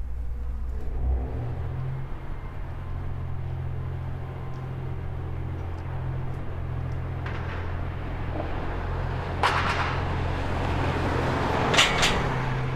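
GV-E400 series diesel-electric railcar's diesel engine running with a steady low hum, stepping up in pitch and level about a second in. A few sharp clanks come in the last few seconds as the train shunts.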